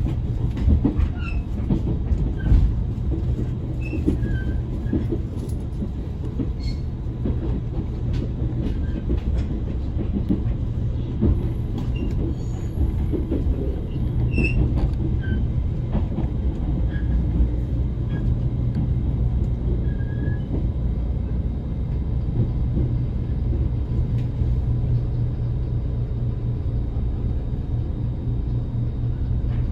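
Passenger cabin of a JR Kyushu limited express electric train under way: a steady low rumble of the running train, with scattered clicks and knocks, most of them in the first half.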